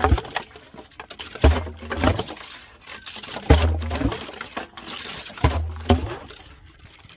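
Hand-operated percussion boring for a hand pump: the iron boring bit is hauled up and dropped down the water-filled casing pipe, landing with a heavy thud about every two seconds. Each thud is followed by a lighter knock.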